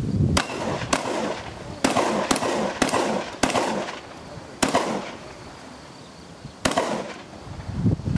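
Shotgun fired eight times in a rapid string, mostly half a second to a second apart, with a longer pause before the last shot. Each report carries a short echo.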